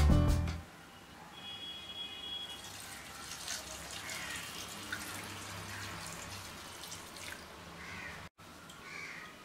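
A thin stream of water pouring onto flattened rice (poha) in a stainless steel mesh strainer, splashing and draining through into the bowl below. It starts about two seconds in and stops near the end.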